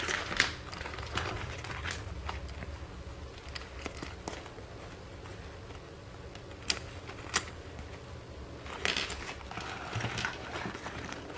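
Handling of a small handmade paper album hung with metal trinket pins and charms: scattered light clicks and small metal clinks with soft paper rustling, and two sharper clicks under a second apart a little past the middle.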